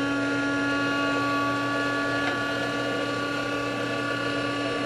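Electric motor of an automated chicken coop door running steadily as it lowers the sliding door to close it: one even, steady hum, with a faint tick about two seconds in.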